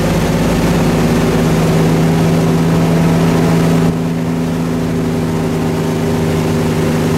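Towboat engine running steadily at speed, a constant hum over the rushing water of its wake; the hiss eases slightly about four seconds in.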